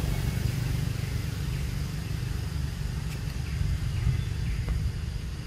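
A steady low rumble of outdoor background noise, with a few faint short high chirps in the middle of the stretch.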